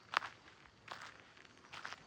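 Footsteps of a person walking: three steps a little under a second apart, the first the loudest.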